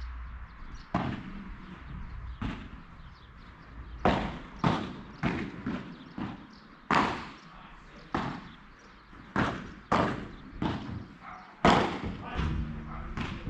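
Padel ball being struck back and forth with rackets and bouncing during a rally: about fifteen sharp, irregularly spaced pops and knocks.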